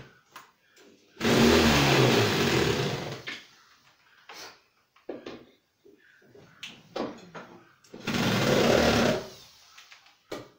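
Cordless drill running in two bursts of about two seconds each, one a second in and one about eight seconds in, with light knocks and clicks of handling between them.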